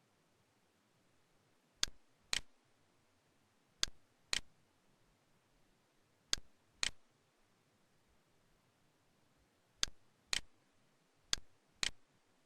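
Mouse click sounds from Camtasia's cursor click sound effect: five pairs of sharp clicks, the two clicks of each pair about half a second apart.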